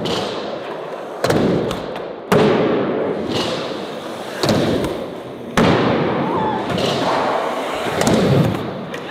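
Skateboards popping and landing during ollie attempts on flat ground: several sharp slams of decks and wheels hitting a hard surface, about four in nine seconds, with the rumble of wheels rolling between them.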